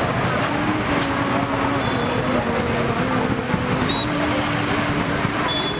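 Busy street noise: road traffic with motorbike and car engines running, over the babble of a crowd.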